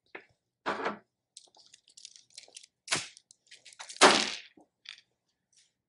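A decorated stick being snapped and broken: several sharp cracks with small crackling between them, the loudest about four seconds in.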